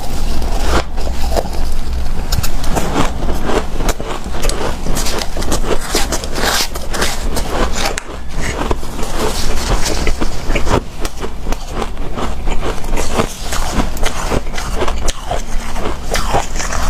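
Hard, powdery refrozen ice being bitten and chewed: a dense run of crisp crunches and sharp cracks.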